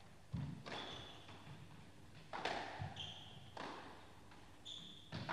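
A squash rally: the ball is struck by rackets and smacks off the court walls and floor, a sharp hit about every second with a short echo, and shoes squeak briefly on the court floor twice.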